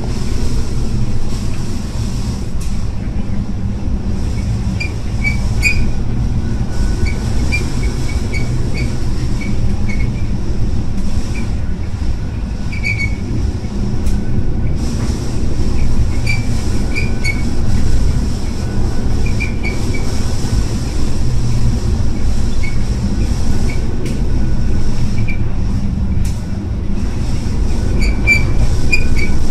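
Steady, loud low rumble inside a ship in heavy seas, with frequent short high-pitched squeaks and creaks scattered throughout.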